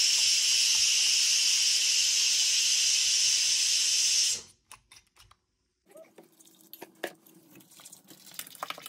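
A steady, loud hiss from food cooking on the stove, cutting off abruptly about four and a half seconds in. A few faint clicks follow.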